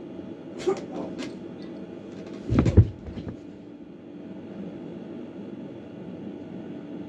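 A body dropping from a bed onto the carpeted floor close to the phone: a few light knocks and rustles, then a heavy thump with a short scuffle about two and a half seconds in. A steady low room hum runs underneath.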